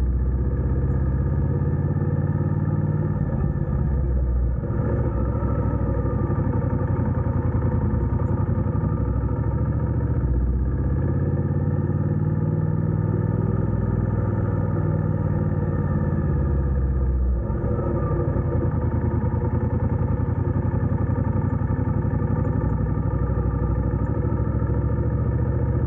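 Motorcycle engine running steadily while riding, its pitch dropping and picking up again three times, as at gear changes or throttle changes.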